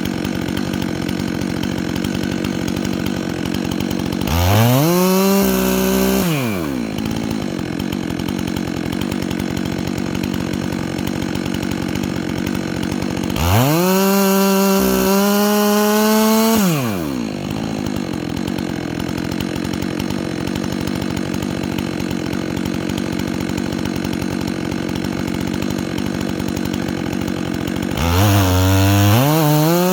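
Two-stroke chainsaw idling, revved up to full throttle three times, each time for about two to three seconds, then dropping back to idle; the last rev starts near the end.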